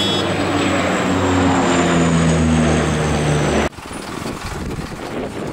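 Canadair CL-415 water bomber's twin turboprops droning loudly as it passes overhead, the propeller tones and a high whine sliding down in pitch. The drone cuts off abruptly a little after three and a half seconds, giving way to quieter outdoor background noise.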